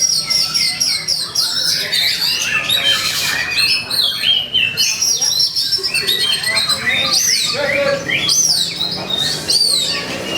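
Oriental magpie-robin (kacer) singing a fast, unbroken song of varied whistles, quick rising and falling glides and harsh chattering notes. This is the agitated 'fighting' song that keepers play to provoke other kacer into singing.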